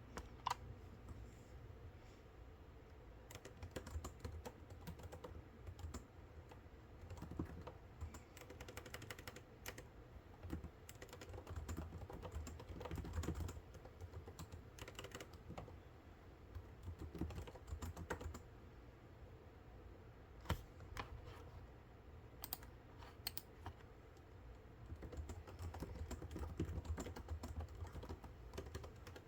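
Typing on a computer keyboard in irregular bursts of key clicks, with a few louder single clicks, over a low background hum.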